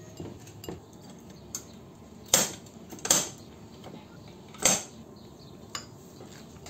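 Metal kitchen utensils clicking and clinking against a ceramic pot as hard-boiled eggs are cut with an egg cutter and worked with a fork. Several sharp clicks, three of them loud, between about two and five seconds in.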